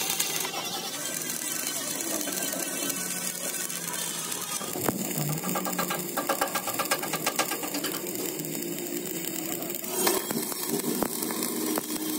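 Stick (arc) welding: the electrode arc crackling and sizzling steadily as a bead is laid along the bucket's steel seam.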